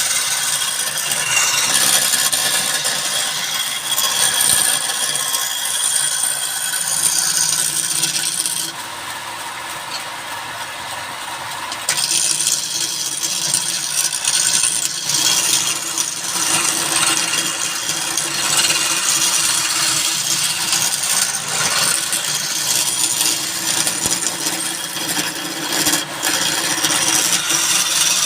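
Wood being cut and shaped by a woodworking machine: a continuous rasping, scraping noise, which goes quieter and duller for about three seconds near the middle.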